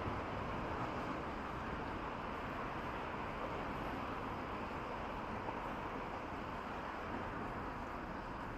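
Steady rushing ambient noise, with no distinct events.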